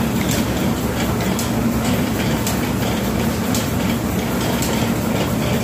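Mustard oil expeller running steadily as it presses mustard seed, a loud mechanical hum with a regular clack about once a second.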